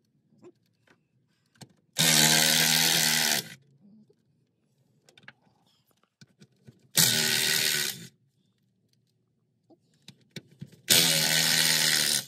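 Cordless impact wrench running in three bursts of about a second to a second and a half each, backing out the transmission mount bolts of a VW Vanagon.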